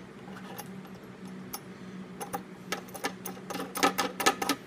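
Small irregular metal clicks and ticks as a nut and washer are threaded by hand onto a mandolin's pickup output jack at the tailpiece, busier near the end. A faint steady hum runs underneath.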